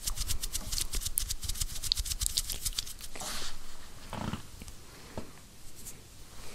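Fingertips tapping and scratching on a microphone's grille: a fast run of light clicks for about three seconds, then a few softer rubs.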